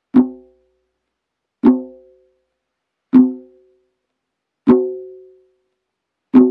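Tombak struck five times, evenly about a second and a half apart, with the left-hand stroke: a loose wrist flick brings the fingers down on the skin near the rim and lets them spring off. Each stroke gives a short ringing note that dies away quickly.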